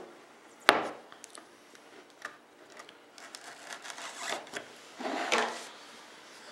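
Hands handling a glossy hard-case trading card box on a wooden table: one sharp knock a little under a second in, a few light clicks, then soft rubbing and scraping as fingers work over the lid.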